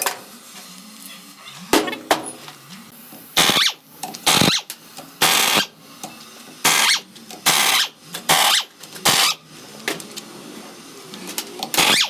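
A power tool run in short bursts, about eight of them, each under half a second, with a few sharp metallic knocks in between.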